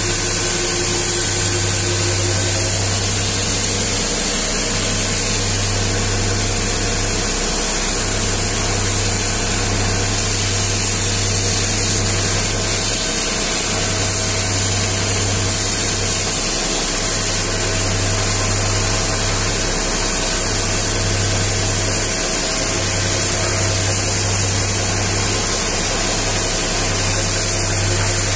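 A high-pressure washer's water jet hisses steadily as it blasts mud off a dump truck's big tyre and steel body. A low hum from the washer runs beneath it and dips out briefly several times.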